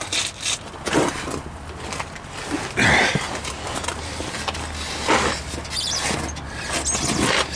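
Scuffing and rustling of a person sliding on their back under a car on pavement and handling the exhaust pipe, four times, loudest about three seconds in, over a steady low hum.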